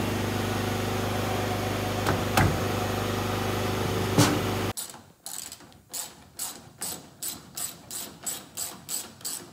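A loud steady machine hum with two sharp knocks cuts off suddenly about five seconds in. After it, a ratchet wrench clicks in even strokes, about two a second, tightening the nut on a mounting bolt.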